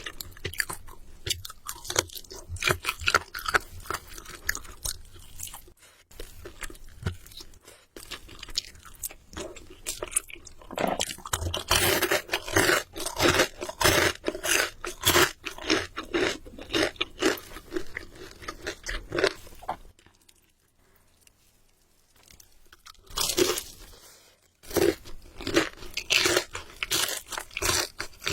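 Close-miked chewing of crispy fried chicken: dense, loud crunching and crackling bites, broken by a silent pause of about two seconds roughly two-thirds of the way through.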